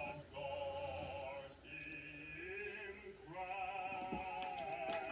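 Background music with a voice singing long held, slightly wavering notes in phrases of a second or two.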